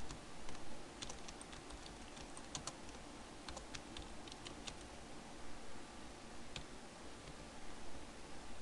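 Quiet computer keyboard typing: a quick run of keystroke clicks over a few seconds, then a single keystroke a couple of seconds later.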